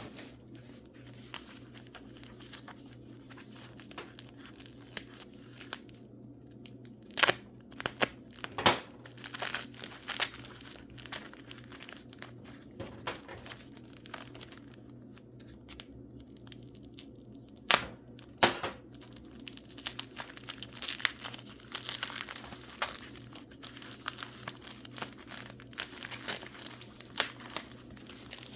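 Packing material around mineral specimens being crinkled and torn open by hand, with a few sharp loud snaps in the middle and dense crinkling near the end.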